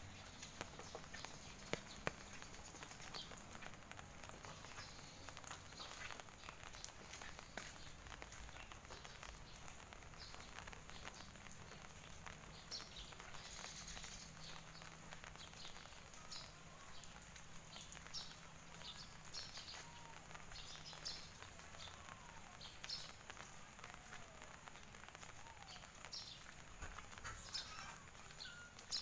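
Faint outdoor ambience with birds chirping in short, high calls, more of them from about twelve seconds in, over a steady high hiss and soft footsteps on a wet paved lane.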